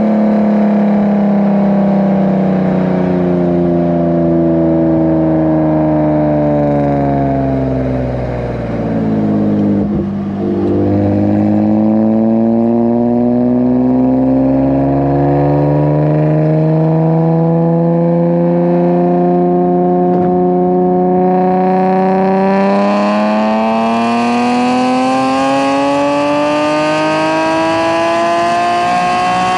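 Nissan 370Z's 3.7-litre V6 with PPE aftermarket headers: the engine note falls as the car slows for about the first ten seconds, then rises slowly and steadily as it accelerates in gear for the rest, growing brighter about two-thirds of the way in.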